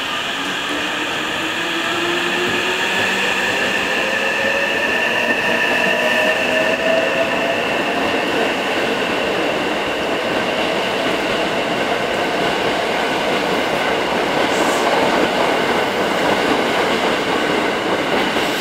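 Hankyu 9000 series electric train pulling out and accelerating past. The inverter-driven traction motors give a whine of several tones that rises in pitch over the first six or seven seconds. It then fades into the steady rolling noise of wheels on rail as the cars go by.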